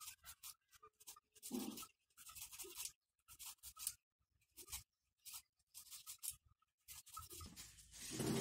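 Kitchen knife chopping kale leaves on a wooden chopping board: quick, faint cuts in irregular bunches. A longer, louder noise builds near the end.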